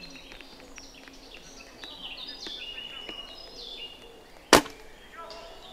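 A single sharp crack about four and a half seconds in: a spring-powered bolt-action airsoft sniper rifle (an upgraded L96/T96 type, about 460 fps) firing a shot. Birds chirp throughout in the background.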